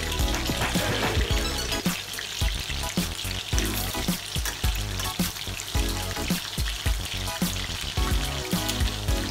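Battered chicken pieces sizzling in hot oil in a stainless steel pan as they are dropped in with tongs. Background music with a steady beat plays underneath.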